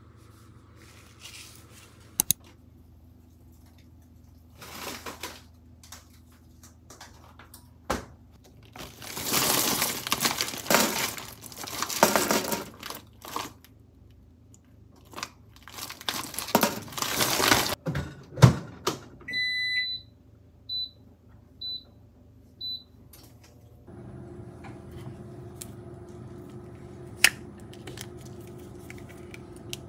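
A plastic bag of frozen dumplings rustling and crinkling in loud bursts as they are shaken out onto a wire tray. It is followed by a kitchen appliance's electronic beeps, one longer beep then four short ones about a second apart, and then a steady appliance hum.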